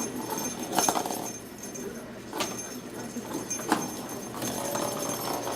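Chihuahua puppies playing, with small yips or growly noises and three sharp taps or knocks, about one, two and a half, and nearly four seconds in.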